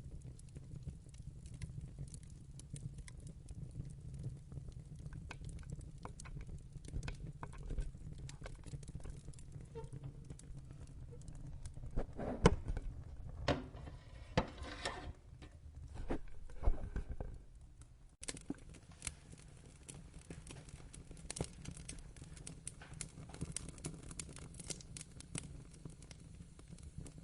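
Wood fire crackling in a fireplace: irregular sharp pops and snaps over a steady low rumble of flames, with a run of louder pops just before the middle. The sound dips briefly and picks up again soon after.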